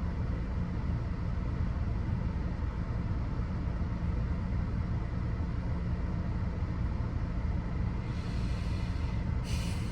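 Steady low rumble of a car on the move, road and engine noise with a faint steady hum, and a brief rush of hiss near the end.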